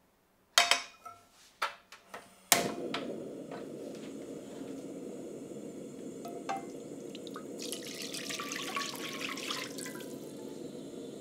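A few clicks and knocks, then a portable gas cassette stove lights with a sharp click about two and a half seconds in and its burner runs with a steady rushing flame noise. From about seven and a half seconds to ten seconds, braising sauce is poured from a saucepan into the hot stainless pan, splashing.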